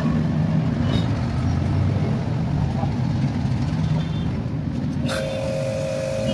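A motor vehicle engine running close by amid street traffic. About five seconds in, a steady whine starts suddenly and holds.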